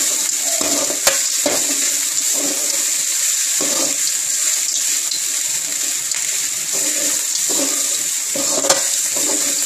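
A steel spoon stirring and scraping cooked rice around a stainless steel pan over a steady hiss, with two sharp clicks of metal on metal, one about a second in and one near the end.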